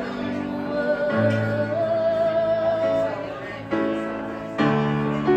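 A woman singing to her own grand piano accompaniment. She holds one long note in the middle, and the piano chords change a few times.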